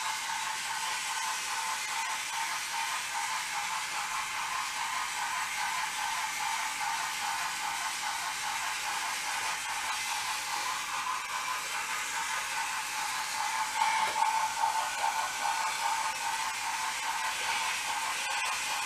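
Battery-powered toy trains whirring steadily as their small motors drive them along wooden track, briefly louder about fourteen seconds in.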